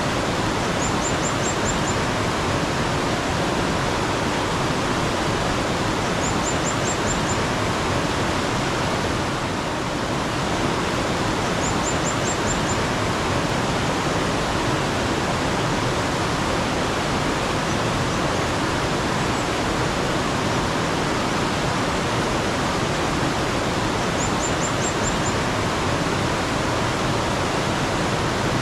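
Mountain stream water running steadily, a dense even rush. A small bird gives a quick high run of about five chirps four times over it.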